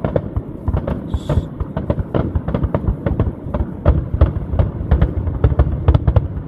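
Fireworks going off: a rapid, continuous series of sharp bangs and crackles over low booms.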